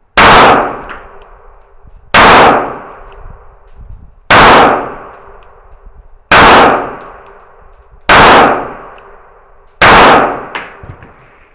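Six gunshots from a 9mm firearm loaded with 115-grain rounds, fired at a slow, even pace about two seconds apart. Each shot is loud and dies away over about a second.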